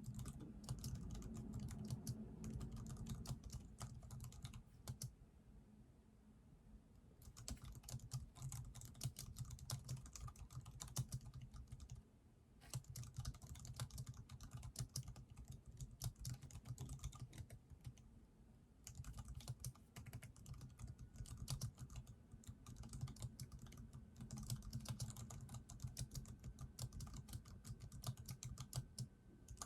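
Computer keyboard typing: fast runs of key clicks broken by a few short pauses.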